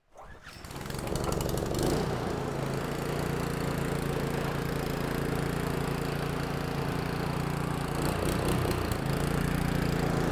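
A pressure washer's small single-cylinder gasoline engine is pull-started cold on choke, with a freshly cleaned carburetor. It catches within the first second and runs steadily. Its note shifts briefly about eight to nine seconds in.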